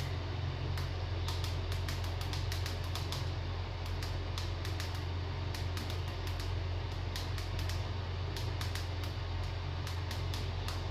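Steady low hum with many light, irregular clicks scattered over it, like tapping.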